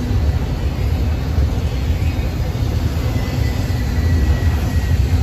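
Double-stack intermodal container train rolling past: a steady low rumble of its well cars' wheels on the rails.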